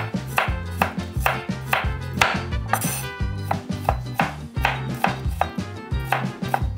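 Kitchen knife chopping garlic cloves on a cutting board: sharp, even chops, about two to three a second, mincing the garlic finely.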